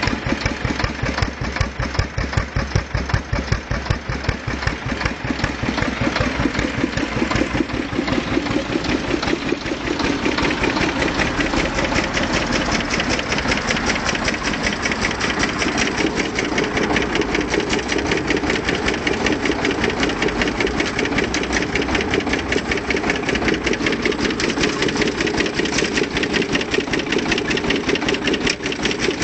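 Engine of a small homemade tractor idling steadily, with an even, rapid knock of firing strokes.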